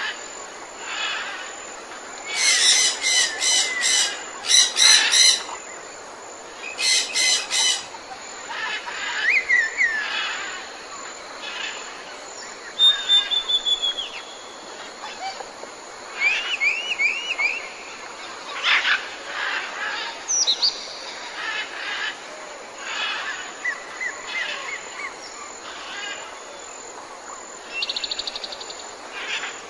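Jungle ambience: several birds calling over a steady hiss, with loud harsh repeated calls in two bursts early on, then scattered whistles and chirps and a short fast trill near the end.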